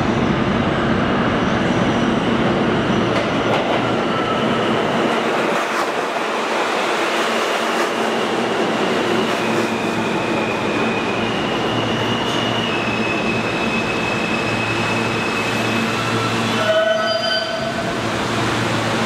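R160 subway train entering an underground station, running along the platform and braking toward a stop, with a loud rumble of wheels on rail. High steady whining tones shift in pitch as it slows, and a low hum sets in. About two seconds before the end the sound changes abruptly with a short louder burst.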